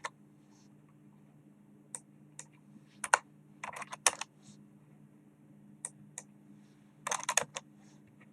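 Computer keyboard keys tapped in short bursts with pauses between, as numbers are typed in, over a steady low hum.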